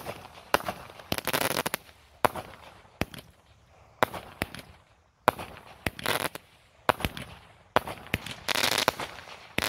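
Small aerial fireworks going off in quick succession, about one sharp bang a second. Several of the bursts are followed by a spell of dense crackling.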